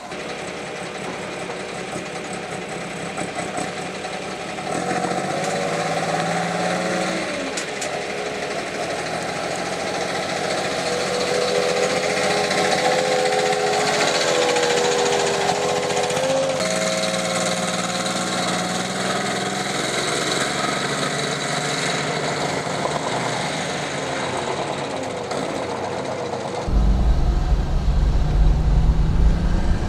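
Classic truck engines running close by, their engine speed rising and falling in places as they are revved and pull away. Near the end it changes to a louder, low road rumble heard from inside a car following a truck.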